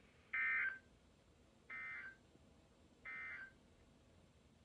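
Three short bursts of warbling digital data tone, about a second and a half apart, the first louder than the other two: the SAME end-of-message code of an Emergency Alert System broadcast on NOAA Weather Radio.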